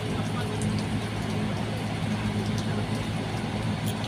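Steady low drone of a large ferry's diesel engines running as the Portlink III manoeuvres to berth, an even hum with no change in pitch.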